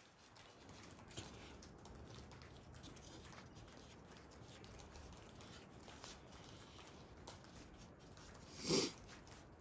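Faint soft rustling and small clicks of an egg roll wrapper being folded and rolled by hand on a plastic plate, with one short louder noise near the end.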